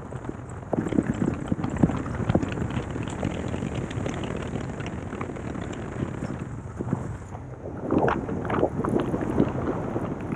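Wind buffeting an action camera's microphone on a bicycle riding fast on a paved road, over a steady rush of tyre and road noise. It gusts harder about a second in and again around eight seconds in.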